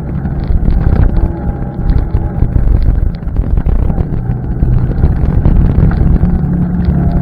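ATV engine running while riding along a trail, its pitch shifting with the throttle, with wind buffeting the microphone and many small clicks and rattles.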